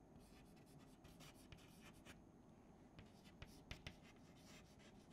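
Chalk writing on a chalkboard: faint, short scratchy strokes, with a few sharper taps of the chalk in the second half.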